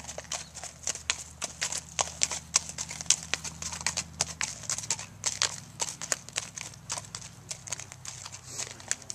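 Hoofbeats of a gaited horse moving at a quick, even gait on a dirt and gravel track: a steady run of sharp hoof strikes, several a second.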